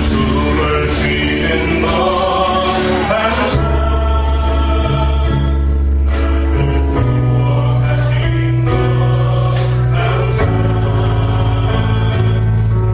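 Christian worship music: voices singing together over a band, with held bass notes and regular percussion hits.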